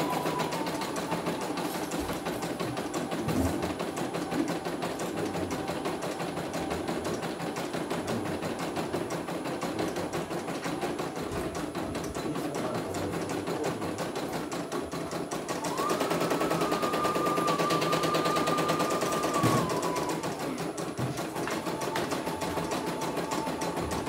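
Computerized single-needle embroidery machine stitching a test design, a rapid even clatter of the needle with the motor's whine. About two-thirds of the way through it runs louder with a higher whine for about four seconds, then settles back.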